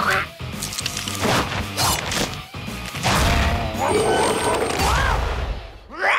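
Cartoon monster-transformation sound effects: a rapid run of crashes and thwacks over dramatic music, then a low rumble with wavering, gliding pitches and a quick rising sweep near the end as the girl turns into a giant chicken.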